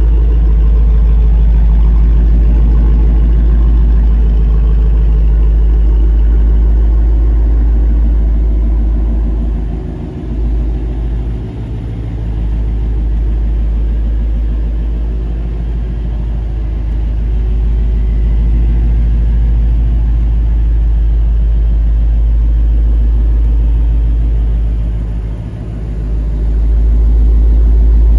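Ford Mustang Shelby GT350R's 5.2-litre flat-plane-crank V8 idling steadily with a deep exhaust rumble. Its level dips briefly about ten and twenty-five seconds in.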